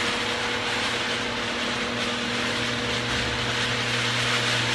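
Electric garage door opener running steadily, a motor hum under a broad whirring, as it drives the door down on a test cycle after a torsion spring replacement.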